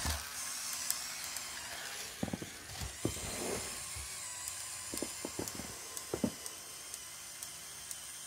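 Lego Technic L motor driving the chassis's plastic gear train and CVT: a steady high-pitched mechanical whine, growing slightly fainter. A few plastic clicks and knocks come about two to three seconds in and again around five to six seconds in.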